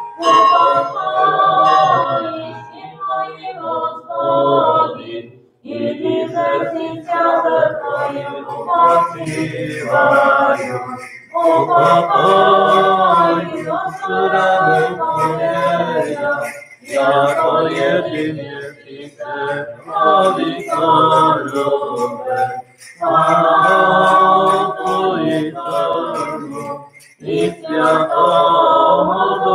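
Unaccompanied Orthodox church chanting, sung in phrases of a few seconds with short breaks between them.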